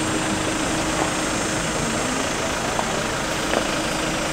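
Steady road-traffic noise from cars and motorbikes, with a low steady hum and a few faint clicks.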